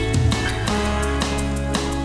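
Background music with a steady beat, about two beats a second over held tones and a strong bass.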